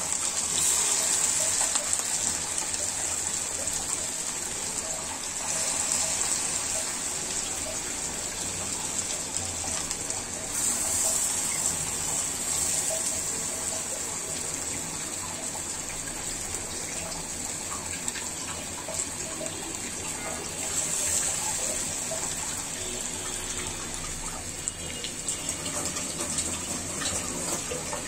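Lentil-batter fritters (piyaju) deep-frying in hot oil: a steady bubbling sizzle that swells louder several times.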